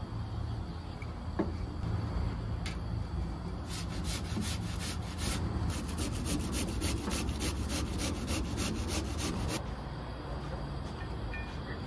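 Peeled potato grated on a metal box grater: a quick run of rasping strokes, about three or four a second, starting about four seconds in and stopping two seconds before the end.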